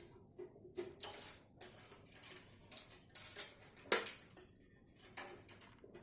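Light clicks and clatter of plastic cable connectors and case parts being handled, with the sharpest click about four seconds in: front-panel USB 2.0 header cables being fitted to the motherboard.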